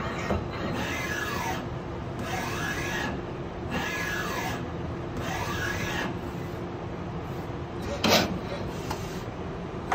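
Tsugami MU38SY CNC lathe running through axis moves: the servo drives whine up and down in pitch four times, about a second and a half apart, as the turrets traverse, over a steady machine hum. A single sharp clunk comes about eight seconds in.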